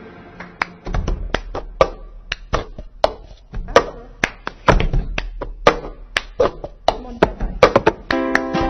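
Cup-game rhythm: hand claps, knuckle taps on a table and a cup being lifted and knocked down, in a quick repeating pattern. Near the end, ukulele music comes in.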